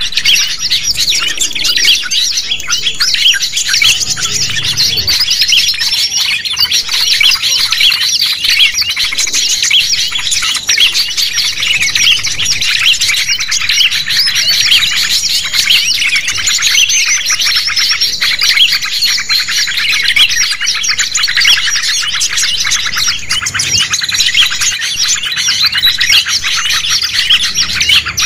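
A loud, dense chorus of many small songbirds chirping and trilling over one another without pause: a mixed 'burung ribut' bird-lure (suara pikat) recording, meant to draw wild birds in.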